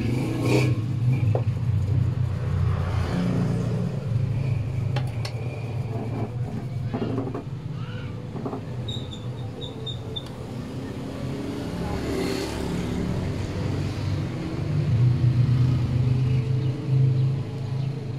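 A motor vehicle engine running, a low steady drone that swells and eases, loudest near the start and again about fifteen seconds in. A short run of high chirps comes about nine seconds in.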